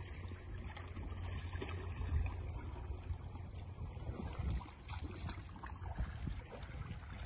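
Wind rumbling on a phone microphone, with small waves faintly lapping and trickling against shoreline rocks.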